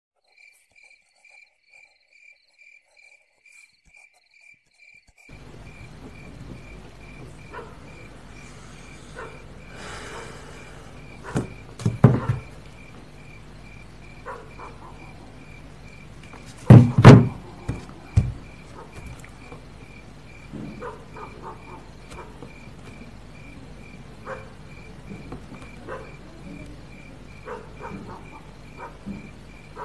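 A cricket chirping steadily, about three chirps a second, over a low room hum that comes in about five seconds in. A few knocks sound in the middle, the loudest a thump a little past halfway.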